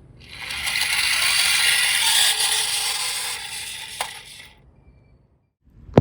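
Toy vehicle rolling down a slope, its plastic wheels and mechanism rattling; the sound swells, holds, then fades over about four seconds, with a sharp click near the end.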